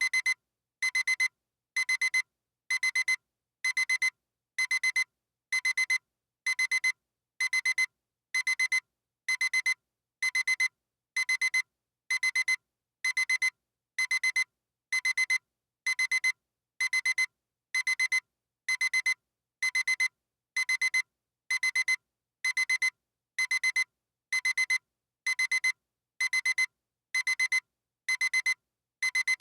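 Electronic alarm clock beeping: a high-pitched beep sounding in quick clusters of several beeps, the clusters repeating evenly a little faster than once a second.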